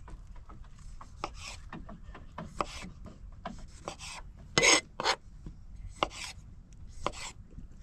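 Kitchen knife cutting cherry tomatoes on a chopping board: irregular light taps and scrapes, with a few louder knocks of the blade on the board about halfway through.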